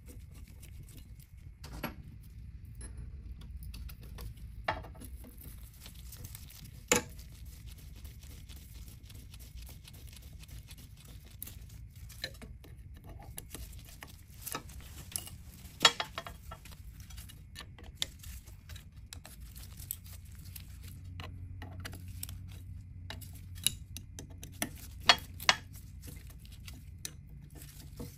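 Hand tools working small bolts into a motorcycle gearbox case: scattered light metallic clicks and clinks as a hex key turns and bolts are threaded in and snugged, with a few sharper clinks now and then.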